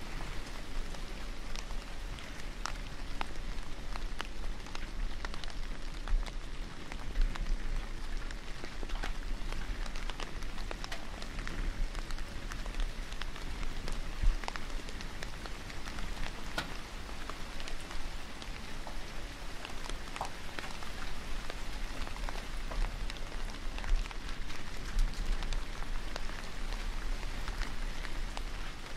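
Steady rain-like patter with scattered small crackles and a low rumble underneath.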